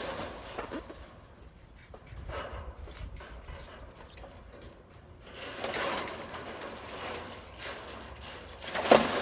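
Sheet-metal casing panels of an air-conditioning condenser unit being handled and fitted back on, in uneven stretches of noise. One knock near the end is the loudest sound.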